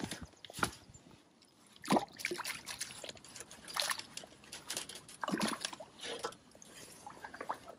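Water sloshing, splashing and dripping as a keepnet is lowered and tipped at the river's edge, with several louder splashes at irregular intervals as chub slip out of the mesh back into the river.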